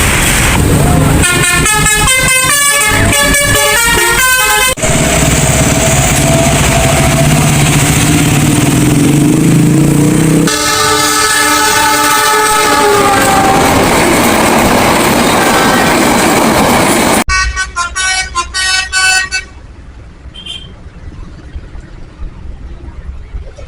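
Loud multi-tone 'telolet' musical air horns on big trucks and buses, playing quick stepping tunes. Between the tunes comes a long held horn chord, then a horn that slides down in pitch, and after a sudden cut another short tune over quieter traffic noise.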